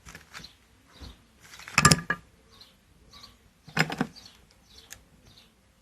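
Two metallic clanks of engine parts being handled on the bench, about two seconds apart, the first with a brief ring. Small birds chirp faintly throughout.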